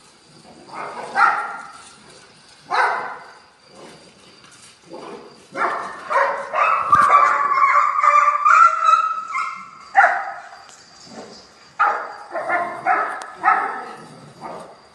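A pack of street dogs barking in sharp, separate barks while attacking a cat. In the middle a long, wavering, high cry lasts about four seconds before the barking picks up again.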